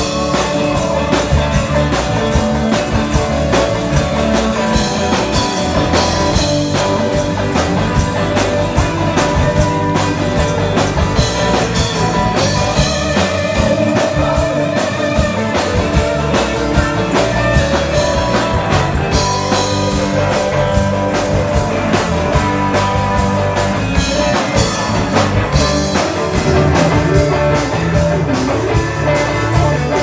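Live band playing rock music: electric guitars and a drum kit with a steady beat, loud and continuous.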